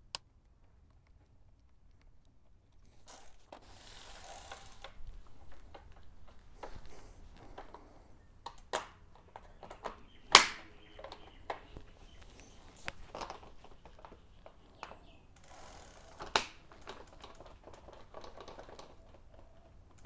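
Scattered sharp clicks and knocks of cycling shoe cleats clipping into and out of PowerTap P1 power meter pedals, the sharpest click about ten seconds in, with soft rustling between.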